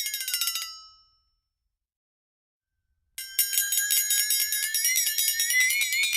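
Bell sound effect ringing in a fast rattling trill of strikes, its pitch wavering up and down. It slides down in pitch and stops under a second in, falls silent for about two seconds, then starts again abruptly and keeps ringing.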